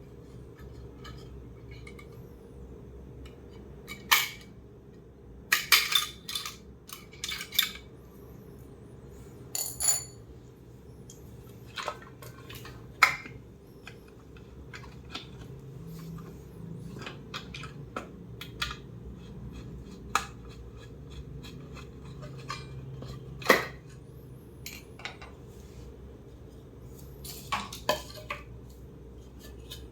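Scattered sharp clicks and clinks of tools and small parts handled while a steam iron is taken apart, over a steady low hum.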